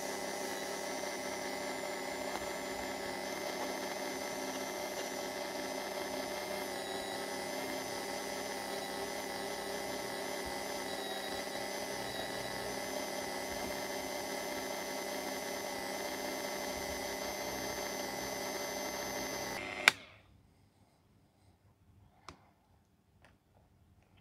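Dremel rotary tool running steadily, spinning a brass clock wheel by its arbor while the pivot is polished against 3000-grit silicon carbide paper; a whine with several steady tones. About 20 seconds in it stops abruptly with a sharp click, followed by a couple of faint clicks.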